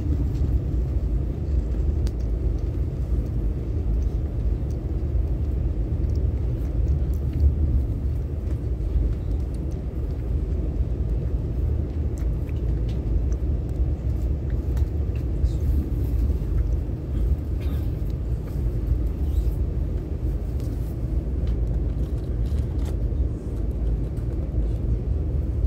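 Steady low rumble inside the passenger car of a CRH high-speed electric train running along the track, with a few faint ticks over it.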